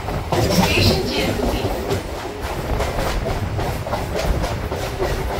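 Moving MMTS local train, its wheels rumbling and clattering irregularly over rail joints and points, heard from the coach's open doorway.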